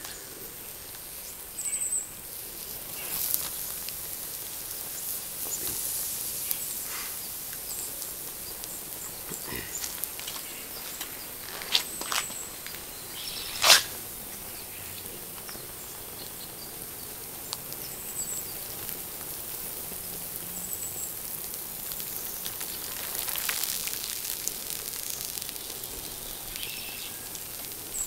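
Foil-covered plastic flexible dryer vent duct burning in the open: a steady hiss with scattered crackles and a few sharp pops, the loudest about fourteen seconds in.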